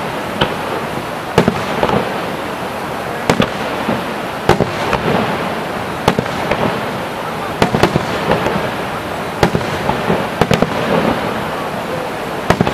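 Aerial fireworks shells bursting in a string of about fifteen sharp bangs, unevenly spaced, some in quick pairs, over a steady background haze with distant voices.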